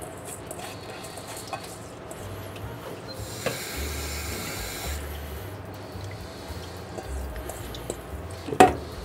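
Washed rice draining in a colander, water trickling and dripping into the sink. About three seconds in there is a louder rush of pouring water lasting under two seconds, and near the end a single sharp knock.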